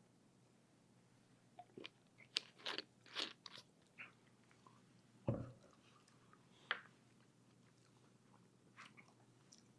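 A person chewing crispy-coated fried orange chicken close to the microphone: a run of crunching bites about two seconds in, then scattered fainter crunches. A single low thump about halfway through is the loudest sound.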